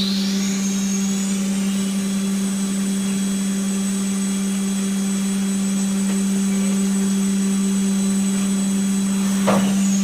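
CNC machining center running: its spindle whine climbs to a steady high pitch about two seconds in, holds there, and begins to fall again near the end, over a steady low machine hum. There is a brief thump just before the end.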